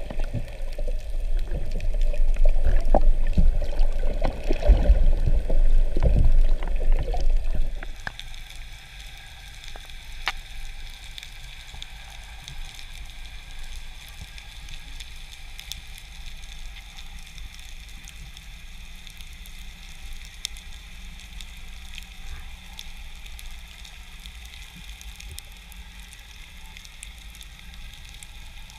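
Water noise heard underwater. For about eight seconds there is a loud, low churning rumble with irregular knocks. It cuts off abruptly, leaving a steady faint crackle of tiny clicks, the sea's own background crackle.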